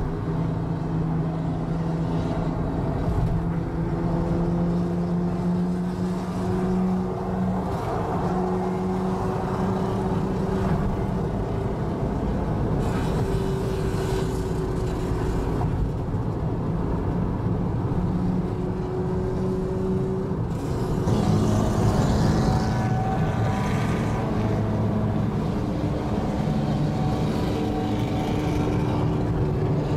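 Exhaust of several straight-piped old Japanese cars cruising together at highway speed, a steady engine drone. About 21 seconds in the engine notes change and grow a little louder.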